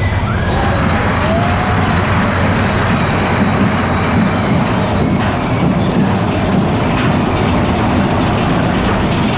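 Big Thunder Mountain Railroad mine-train roller coaster running along its track, with a steady rumble and rattle of the cars' wheels on the rails.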